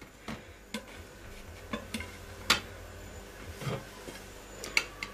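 A knife tapping and scraping on ceramic plates as a slice of meringue pavlova is cut free and lifted onto a second plate, with the crisp meringue crust crunching. There are a handful of separate sharp clinks, the loudest about two and a half seconds in.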